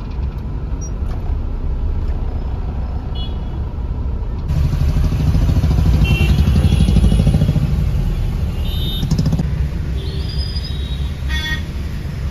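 Road traffic in a jam heard from inside a car: a steady low engine and road rumble, with several short horn toots from surrounding vehicles. The rumble grows louder about four seconds in.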